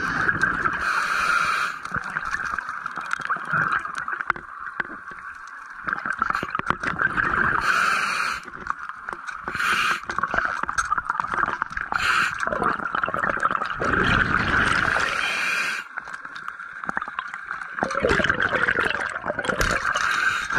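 Muffled underwater sound picked up by a diver's camera: a steady hum with hissing and bubbling that comes and goes every few seconds.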